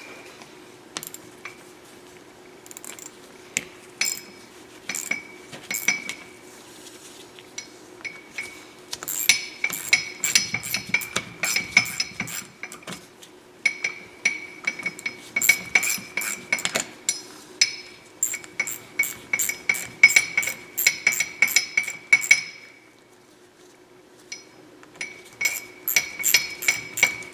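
Runs of quick, sharp metallic clicks, typical of a hand ratchet or bit driver, as screws are backed out of a linear actuator's housing, with a short pause near the end. A steady low hum runs underneath.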